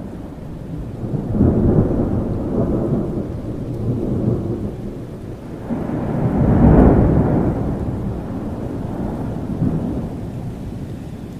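Thunderstorm: steady rain with rolling thunder. One rumble swells about a second in, and a louder one peaks about halfway through before fading.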